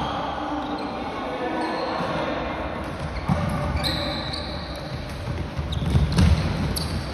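Floorball play in a sports hall: plastic sticks and ball knocking, with sharp knocks about three seconds in and a heavier thud around six seconds in, all echoing in the hall.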